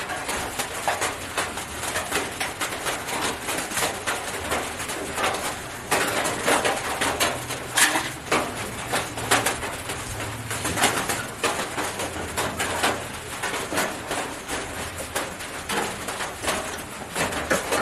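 A chicken making low, repeated clucking calls, with small clicks and knocks scattered throughout.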